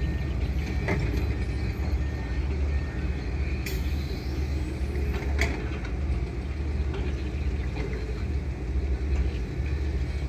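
Steady low rumble of hydraulic excavators' diesel engines working earth and loading a dump truck, with a few sharp clicks about one, four and five and a half seconds in.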